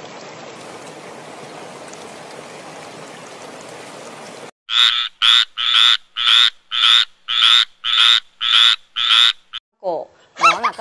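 A steady hiss, then a tree frog croaking in an even series of about ten calls, roughly two a second. Near the end, zebras begin barking calls that bend in pitch.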